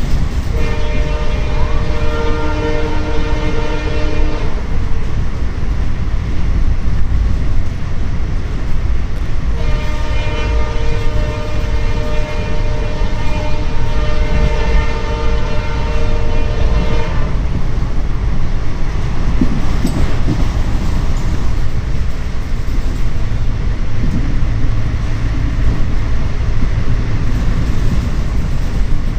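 Horn of WDP4 twin diesel locomotives sounding two long blasts of several notes at once, the first about four seconds, the second about seven seconds, over the steady low rumble of the moving train.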